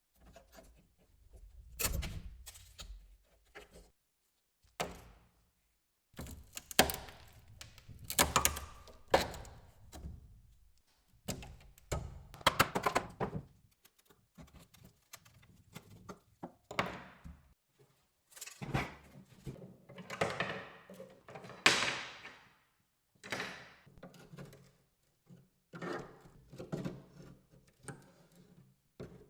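Irregular wooden thunks and knocks, with scraping and handling noise between them, from old wooden furniture being worked on by hand.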